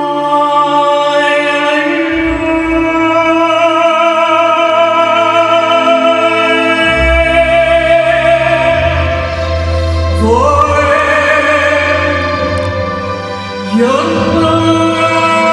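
Live music: a woman singing a slow, wordless melody in a full, operatic voice over sustained backing chords. Her voice swoops upward twice, about ten seconds in and again near the end.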